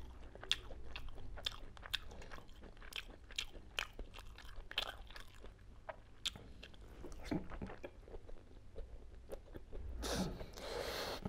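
Mouth sounds of a person eating spiced boiled eggs by hand: irregular wet clicks and smacks of chewing, with a louder bite near the end.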